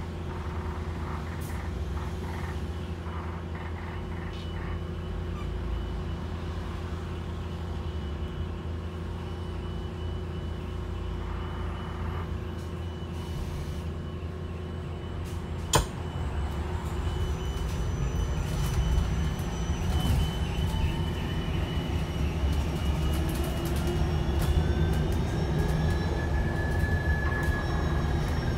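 Inside a hydrogen fuel-cell electric double-decker bus: a steady hum with a constant high whine while the bus stands. A single sharp click comes about halfway through. Then whines rise slowly in pitch and the rumble grows louder as the electric drive pulls the bus away.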